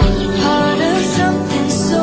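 Song with a singing voice over instrumental backing and a low bass beat.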